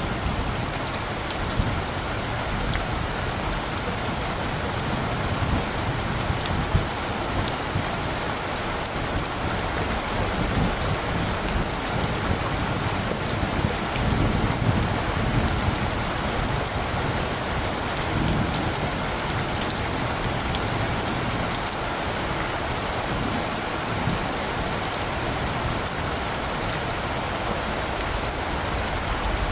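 Steady heavy rain falling, a dense patter of drops hitting surfaces. Low rumbles of light distant thunder swell up now and then, most noticeably about halfway through.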